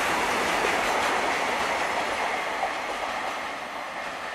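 Goods train of bogie tank wagons rolling past on the rails, a steady rumble and rattle of wheels and wagons that fades gradually as the last wagons and the brake van go by.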